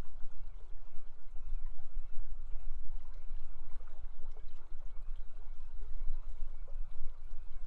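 River water running steadily over shallow riffles, with a heavy low rumble underneath and faint short high chirps.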